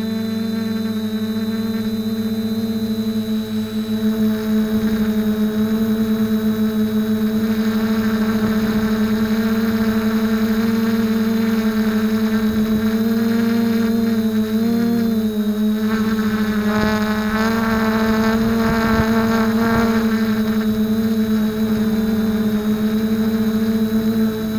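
Quadcopter's electric motors and propellers whining steadily, heard up close from a camera mounted on the craft. The pitch wavers briefly about halfway through as the throttle changes, and a higher whine rises over it for a few seconds after.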